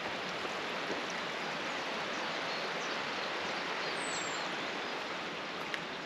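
Steady, even rush of running water from a waterfall stream.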